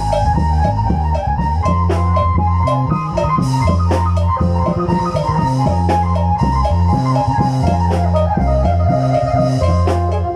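Isan lam phloen music: a plucked phin lute melody of quick repeated notes over a bass line and drums at a steady beat.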